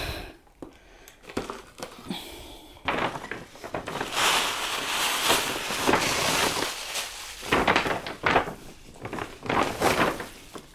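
Rustling and crinkling of gift packaging and baby clothes being handled, with a few light knocks, such as a cardboard box set down near the start. The rustling is heaviest from about three to seven seconds in.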